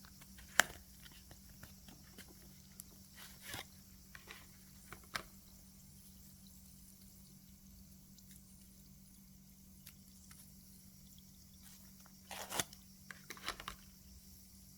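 Scattered clicks and rustles of candies and their plastic packaging being handled: one sharp click about half a second in, a few quieter rustles, then a short cluster of rustling near the end, over a steady low hum.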